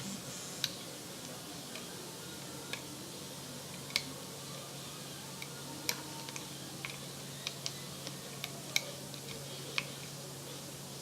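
Sparse, irregular light clicks and taps from hands working small hard objects, about fifteen in all, over a faint steady low hum.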